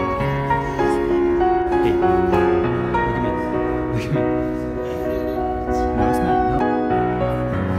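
Background music with piano: sustained notes and chords that change every second or so.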